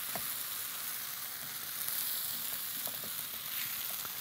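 Risotto rice sizzling in the pan with shrimp stock as it is stirred, with small scattered clicks of the stirring against the pan. The stock is being cooked off into the rice before the next spoonful goes in.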